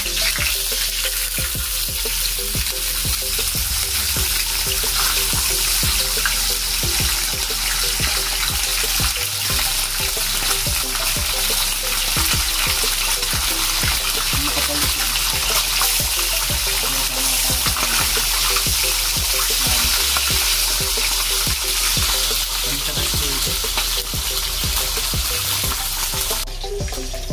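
Ham slices sizzling as they fry in hot fat in a frying pan: a steady hiss that cuts off about a second before the end.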